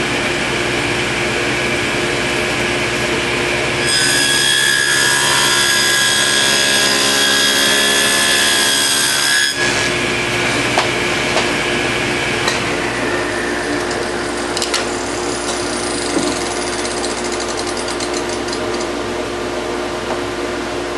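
Table saw with a wobble wheel dado blade running, then cutting a dado across a panel, louder and ringing with high tones, for about five and a half seconds starting about four seconds in. After the cut the saw keeps running with a lower, steadier sound and a few light knocks.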